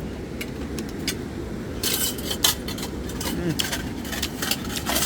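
A run of light clicks and clinks, sparse at first and coming thick from about two seconds in, over a steady low rushing noise.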